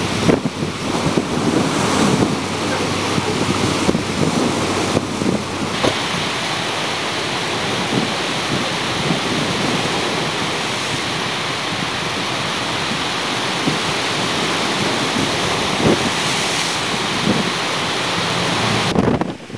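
Storm surf crashing and surging over a rocky, log-strewn shore in a gale, a loud continuous rush, with wind buffeting the microphone in frequent low thumps.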